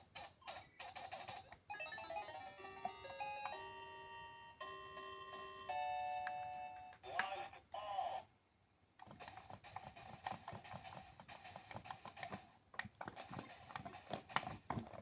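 Atari 8-bit computer game sound: a rapid pulsing buzz, interrupted about two seconds in by a short melody of stepped electronic beeps lasting several seconds, then after a brief gap the pulsing buzz resumes.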